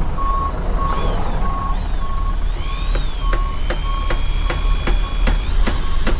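Construction-site sound effects: a heavy vehicle's reversing alarm beeping steadily about one and a half times a second over a deep engine rumble. About two and a half seconds in, a run of evenly spaced sharp knocks and high rising-and-falling whines joins in.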